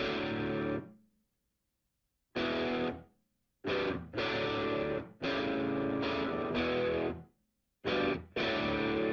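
Background music: electric guitar chords played in short stop-start bursts, each cut off sharply, with silent gaps of up to a second and a half between them.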